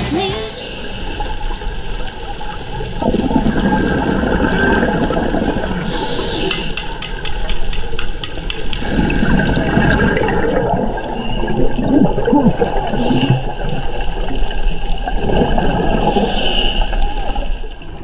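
Underwater recording of a scuba diver's breathing: surges of exhaled bubbles rumbling and gurgling about every six seconds, with a higher hiss between them.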